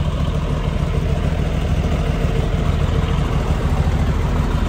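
Portable generator's engine running steadily at close range.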